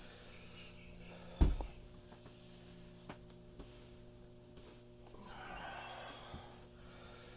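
A single loud, deep joint pop about a second and a half in, then a couple of faint clicks and a soft rushing noise, over a steady electrical hum.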